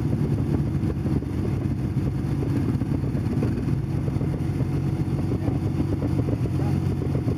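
Vehicle engine running steadily at idle, with no revving.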